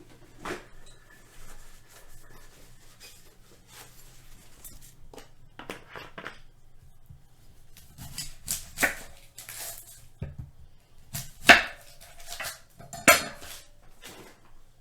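Irregular knocks and clatters of a kitchen knife and cutting board handled on a countertop, getting an onion ready to slice, with two louder knocks near the end.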